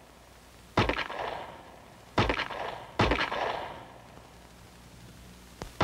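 Three revolver shots, about a second in, then roughly a second and a half and two seconds after that. Each is a sharp crack followed by an echo that dies away.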